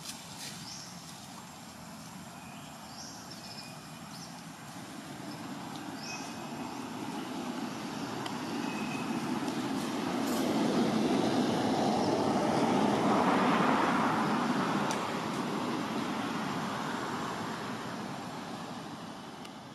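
A vehicle passing by: a rushing sound that swells to its loudest about two-thirds of the way through and then slowly fades. A few faint high chirps sound in the first few seconds.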